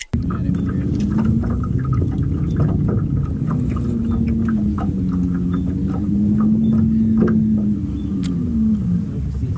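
Electric trolling motor on a bass boat humming, its pitch slowly wavering up and down over a steady low rumble, with scattered light clicks.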